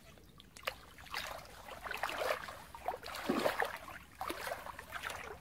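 Water splashing and sloshing in irregular bursts as a person moves and wades through shallow muddy water.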